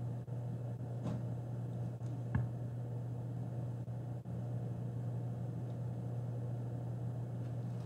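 Quiet hall room tone with a steady low hum, and two faint light knocks about one and two and a half seconds in, from paper ballot boxes being handled as sealing strips are put on them.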